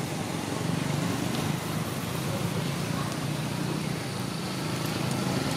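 Steady background hum and hiss, like road traffic, with no distinct events standing out.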